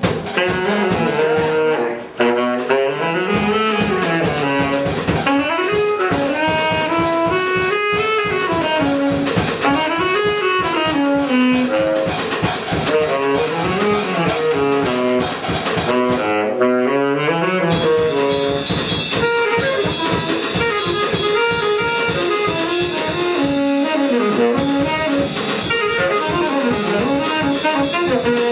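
Live band music: a saxophone playing a winding melodic line over a drum kit keeping a steady beat.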